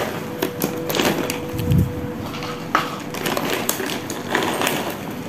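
Kittens eating dry kibble from bowls on a tiled floor: irregular clicks and crunching, with a dull knock about two seconds in.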